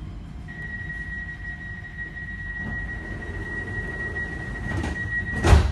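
Tram door-closing warning: a steady high beep held for about five seconds, ended by a loud thud as the doors shut, over the low rumble of the tram.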